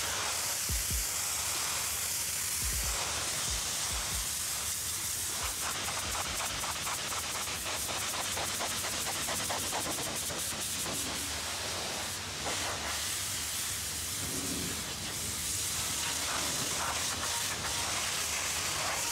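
High-pressure washer jet hissing steadily as it blasts grime off an excavator's boom pivot and hydraulic hoses, its sound shifting as the lance moves over the metal.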